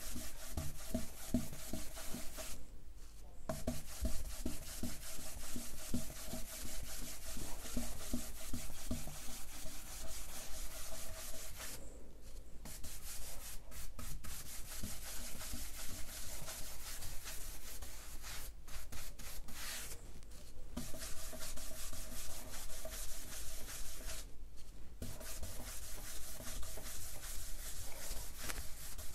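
Wax brush scrubbing dark brown furniture wax into a bare pine top with quick back-and-forth strokes of bristles on wood, stopping briefly a few times.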